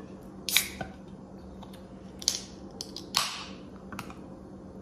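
Fingers working the pull-tab of a mini aluminium soda can: several sharp clicks, with one snap about three seconds in followed by a short fading hiss as the carbonated can is opened.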